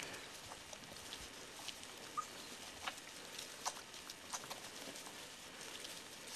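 Border Collie puppies nursing and shifting in straw bedding: faint, scattered soft ticks and rustles, with one brief high squeak about two seconds in.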